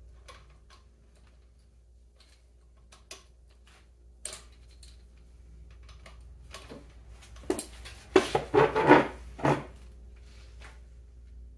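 Socket ratchet clicking and metal tools clinking as the 10 mm bolt holding the motorcycle engine's alternator rotor is tightened, the rotor held with a strap wrench. Scattered light clicks, then a cluster of louder clicking about eight to nine and a half seconds in.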